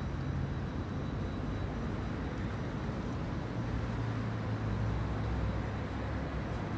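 Steady low rumble of distant city traffic, with a low engine hum that drops a little in pitch about three and a half seconds in.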